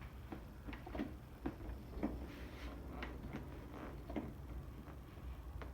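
Clicker adjuster on a Yamaha motorcycle's rear shock being turned by hand, a dozen or so short, uneven clicks as it steps through its compression and rebound settings.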